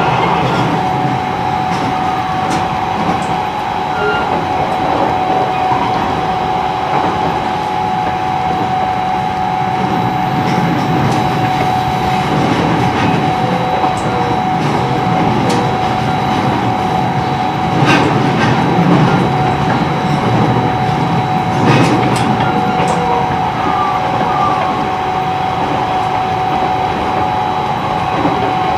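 E129 series electric train heard from inside a motor car with Toyo IGBT traction inverters, running at speed: a steady rumble of wheels on rail with a constant high whine throughout. A couple of sharp knocks from the track sound about two-thirds of the way through.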